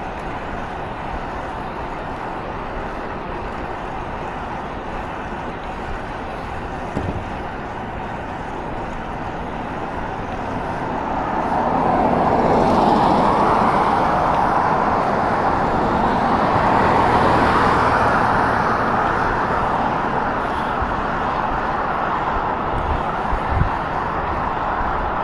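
Steady road noise of a moving vehicle, without speech, swelling louder for several seconds about halfway through.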